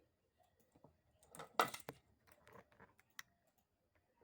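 Irregular clicks and light clatter from hands handling a ceiling fan and its cord and plug, with one louder knock about a second and a half in.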